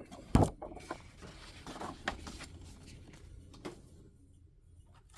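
Hands handling a vinyl record's cardboard jacket and paper poster: a sharp knock about half a second in, then paper and card rustling with a few light taps.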